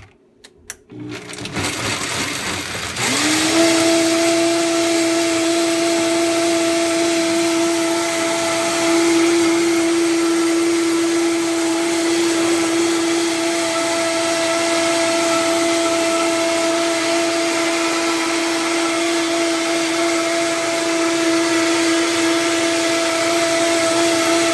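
A few clicks, then a high-powered countertop blender starts up, ramping up to full speed about three seconds in. It then runs steadily at high speed with an even whine, blending a thick green wheatgrass smoothie.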